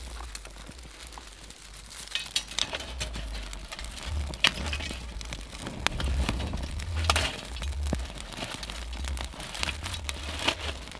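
Dry twigs crunching, crackling and snapping as they are pushed by hand into a small metal firebox stove with a fire burning in it, with irregular sharp clicks throughout and a low rumble underneath.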